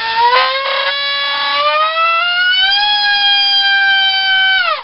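A 4800kv brushless inrunner motor spinning a 3.5-inch propeller under full power on a 4-cell battery: a loud high whine that climbs in pitch over the first three seconds, with a brief rough rasp under a second in, then holds steady and winds down sharply near the end. It sounded a bit odd, making a bit of a funny noise.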